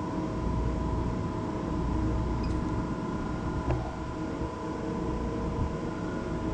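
Steady drone and hum of a tanker's engine-room machinery with its marine diesel generators running, heard inside the engine control room, with a steady whine over a low rumble. A faint click a little past halfway.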